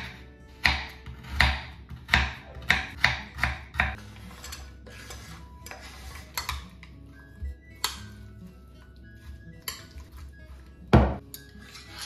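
Knife chopping frozen strawberries on a wooden cutting board, a sharp cut about twice a second for the first four seconds. Then come scattered quieter clinks of a metal spoon against dishes, with one loud knock near the end. Soft background music runs underneath.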